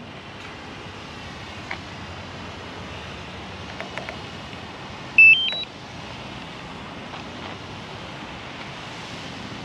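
A short rising run of three electronic beeps about five seconds in, the DJI FPV drone's power-on tones, over a steady outdoor background hiss with a few light handling clicks.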